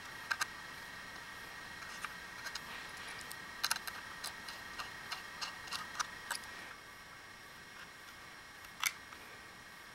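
Small, sharp metallic clicks and ticks of a screwdriver turning small screws through a metal drive caddy into a 2.5-inch SSD, coming in irregular clusters. One louder click comes near the end as the caddied drive is handled into the laptop's drive bay.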